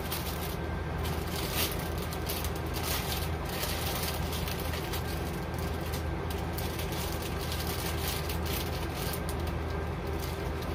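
A steady low mechanical hum, with faint crinkling of a plastic wrapper now and then.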